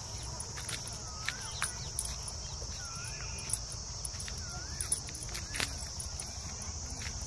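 A steady, high-pitched insect chorus of crickets, with short wavy whistles repeating about once a second and a few sharp clicks, the loudest about three and a half seconds in.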